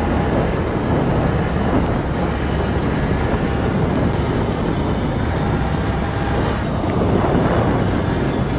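Golf cart driving through floodwater: a steady rushing noise of spraying water and wind on the microphone.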